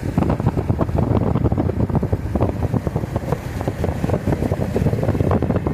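Wind buffeting the microphone over the low rumble of a moving vehicle, a dense, crackling noise with no letup.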